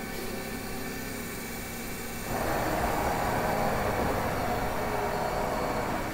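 Mazak VTC-300C vertical machining center running its demo program: a steady machine hum, joined about two seconds in by a louder, noisier running sound that carries on.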